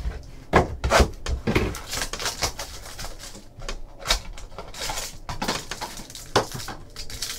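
Hands handling a pack of football trading cards: rustling of the wrapper and cards, with irregular sharp clicks and taps as the cards are flicked through and knocked together.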